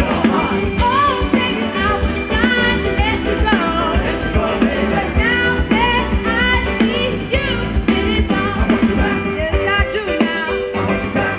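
Band music with a singer: a voice sliding between notes over sustained instrument chords and drums keeping a steady beat.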